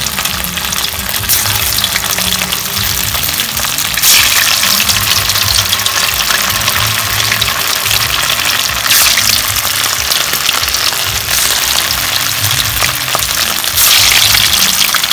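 Pork meatballs deep-frying in hot oil in a wok: a steady crackling sizzle that flares louder three times, about four, nine and fourteen seconds in, as more meatballs go into the oil.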